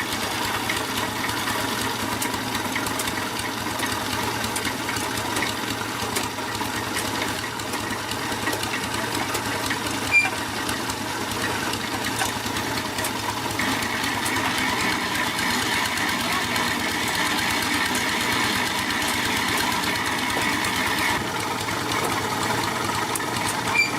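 An engine running steadily, with two short sharp clicks, one about ten seconds in and one near the end.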